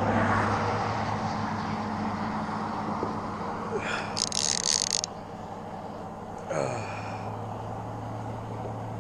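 Baitcasting reel's drag buzzing steadily as a hooked fish, probably a shark, pulls line off the spool, with a short higher-pitched burst about four seconds in.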